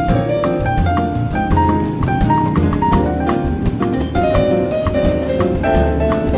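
Jazz-style background music with piano or vibraphone melody, bass and drum kit at a steady beat.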